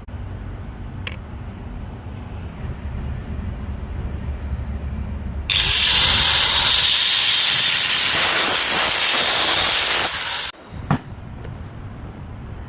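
Stick-welding arc on a 6013 electrode: a sudden loud, steady crackling hiss starts about halfway through and cuts off abruptly some five seconds later. A low rumble runs beneath the first half.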